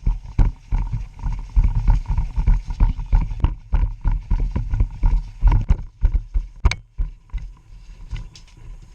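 Footfalls of a player running on foot, heavy irregular thumps about two or three a second, with kit rattling and wind buffeting the microphone.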